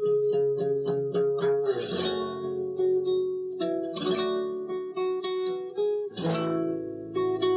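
Acoustic guitar playing: quick runs of picked single notes, with a full strummed chord about every two seconds.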